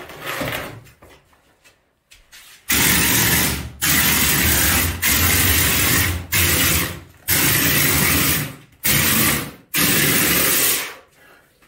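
Compressed-air hopper bucket spraying plaster mortar onto a wall: a loud hiss of air and spray in about seven bursts of roughly a second each, starting about three seconds in.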